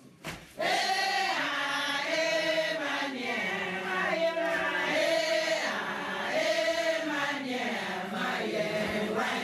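A group of people, mostly women, singing a song together in short repeated phrases, starting about half a second in.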